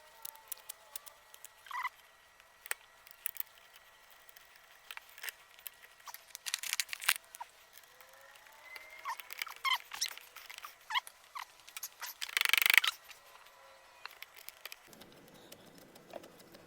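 Scattered small clicks and knocks of metal seat parts being handled and fitted during reassembly, with a louder, short rasping noise about twelve seconds in.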